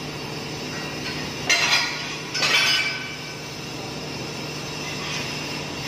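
Two short metallic clatters with a ringing tone, about a second apart near the start, over a steady low hum. The clatters are metal being handled or knocked on a duct-installation job.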